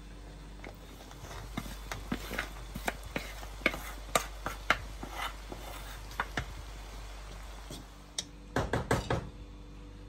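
Wooden spatula scraping and tapping steamed rice out of a perforated metal colander into a cooking pot: a run of light clicks and scrapes, then a quick cluster of louder knocks near the end.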